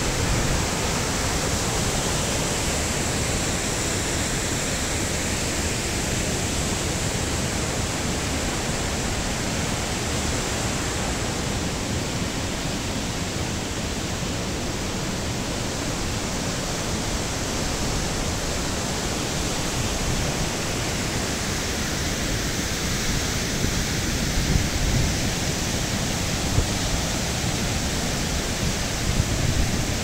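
Large waterfall in heavy winter flow: a steady, loud rush of falling water.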